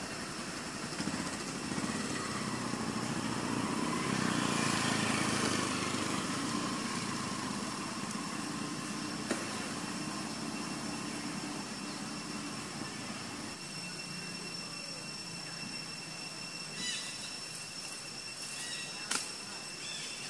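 A motor vehicle passing, growing louder about two seconds in, loudest about four to six seconds in, then fading into a steady background noise, with thin steady high-pitched tones throughout and a few sharp clicks near the end.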